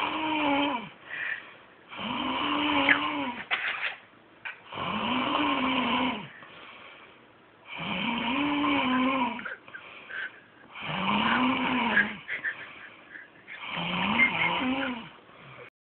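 A man snoring in his sleep: six rasping snores about every three seconds, each one's pitch rising and then falling, with quieter breaths between them.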